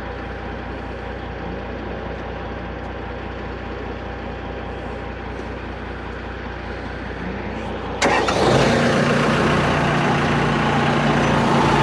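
Asphalt paver's engine running steadily at a low level, then about eight seconds in it suddenly gets much louder and runs on steadily, as the paver is brought up to raise its sagging hopper.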